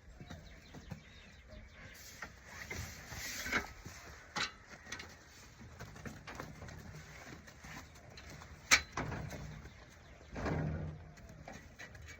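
Scattered knocks, clicks and rustles of hands-on work, with one sharp click about nine seconds in and a short, fuller burst of noise a little after.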